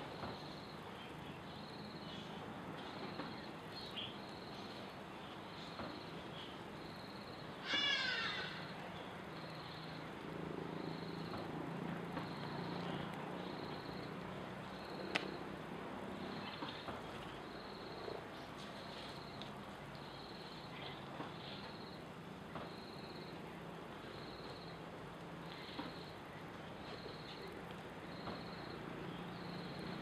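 Outdoor dusk ambience: a faint high chirp repeating about once a second over a steady low hum, with one louder, rapidly falling animal call about eight seconds in.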